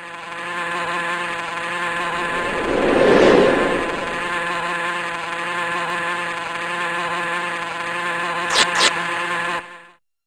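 A steady buzzing drone with many overtones, swelling louder about three seconds in, with two sharp clicks near the end before it cuts off suddenly.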